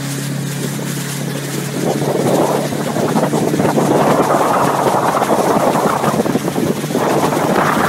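Motorboat running at towing speed: a steady engine hum with rushing water and wind, the rush growing louder about two seconds in.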